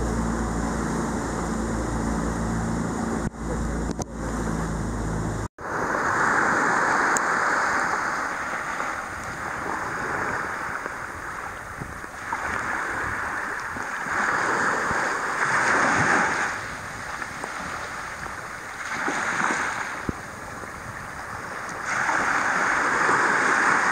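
A small boat's outboard motor running steadily with water rushing past. About five seconds in it cuts off abruptly, and surf breaking on a rocky shore takes over, swelling and fading every few seconds, with some wind on the microphone.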